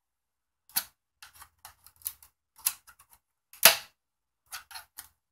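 Snap-together plastic clips of a Viewsonic VP211b monitor's bezel and back cover popping loose as a screwdriver pries along the seam: a string of sharp, irregular clicks and snaps, the loudest one a little past halfway.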